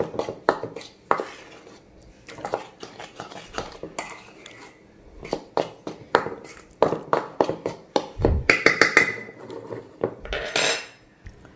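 Metal spoon scraping and clinking against a stainless steel bowl while stirring dry flour, in quick irregular strokes. Two louder clanks come about eight and ten and a half seconds in, the first with a brief metallic ring.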